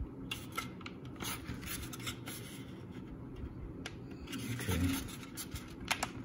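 Hard plastic snap-kit model ship parts being pressed together by hand: fingers rubbing and pushing on the plastic, with scattered small clicks and creaks as the deck is forced into the hull. A brief low sound comes about three-quarters of the way through.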